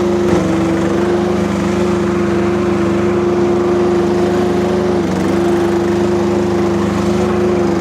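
Kubota diesel engine of a Rippa RS04 mini skid steer running steadily at working speed; its note dips briefly twice, about half a second in and about five seconds in.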